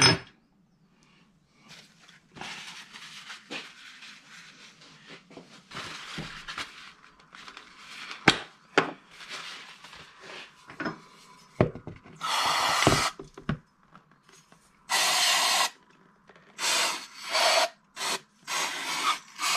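Aerosol brake cleaner sprayed into a brake master cylinder body in a run of hissing bursts: two of about a second each, then several shorter ones in quick succession. Before them come quiet rustling and clicks of the parts and can being handled.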